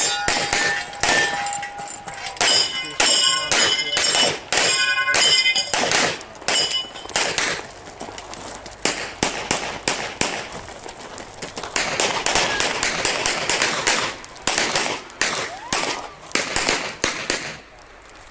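Pistol shots fired in quick strings throughout, with metallic ringing from steel targets being hit, heaviest in the first half.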